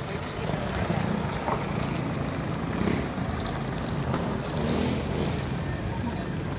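A line of SUVs and a passenger van driving past close by, one after another: a steady rumble of engines and tyres on the road.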